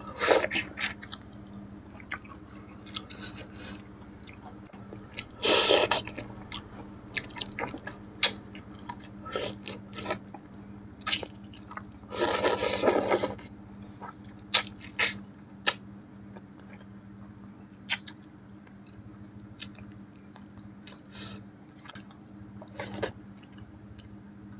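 Close-miked eating sounds: a person chewing and biting into pieces of catfish eaten by hand, with many small wet clicks and smacks. Two longer, louder mouth noises come about five and a half and twelve seconds in.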